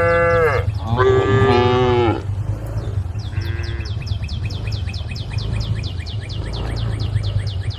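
Cows mooing: two long moos back to back, then a short one. A rapid high chirping, about six a second, starts midway and keeps going.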